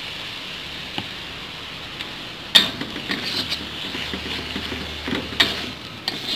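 Stir-fry in a wok: a steady sizzle, then from about two and a half seconds in a metal spatula scraping and knocking against the wok as the beef and shredded vegetable are tossed.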